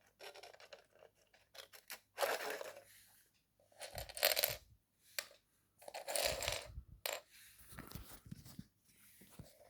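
Plastic Lego pieces being handled: several short bursts of clicking and clattering as pieces are pulled off and set back down.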